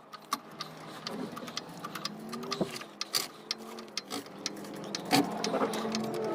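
Irregular light clicks and knocks, with a vehicle engine growing louder near the end.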